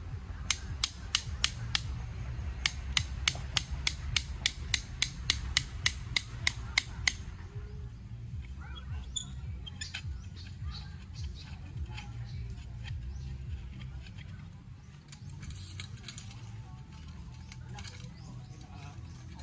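A run of sharp, evenly spaced clicks, about four a second, with a short pause after the first few; they stop about seven seconds in. Faint background music with a low steady hum runs underneath.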